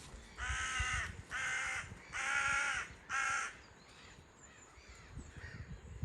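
A bird calling four times in quick succession, loud, pitched calls each under a second long, then stopping.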